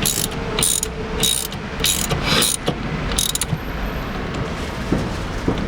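Ratchet wrench clicking in short bursts as the nut holding the steering wheel short hub onto the steering column is tightened down, about six back-strokes in the first three and a half seconds, then quieter.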